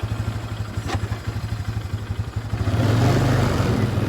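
Four-wheeler (ATV) engine running with a steady low pulse, then revving up and getting louder about three seconds in as it pulls away.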